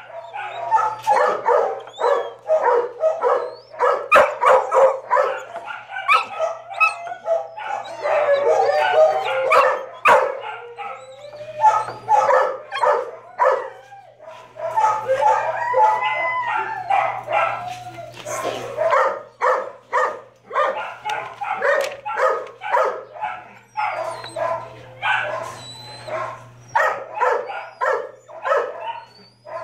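Shelter dogs in their kennels barking and yipping over one another without a break, with some drawn-out howls among the barks and a steady low hum underneath.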